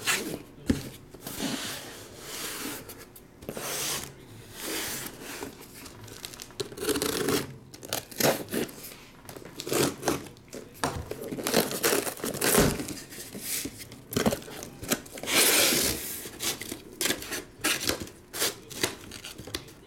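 Cardboard shipping case being torn open by hand: packing tape ripped off and the flaps pulled and scraped back, in an irregular series of tearing and rustling bursts.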